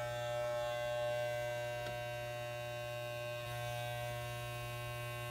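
Corded electric hair clippers running with a steady buzz while held against the side of the head.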